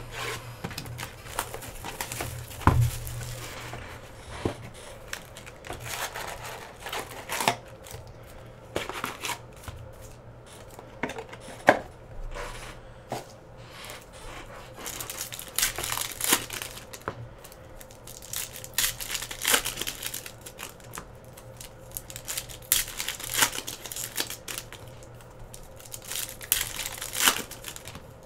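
Plastic wrapping of a sealed trading-card box and its packs being torn open and crinkled by hand: irregular rips and crackles that come thicker in the second half, with a low thump about three seconds in.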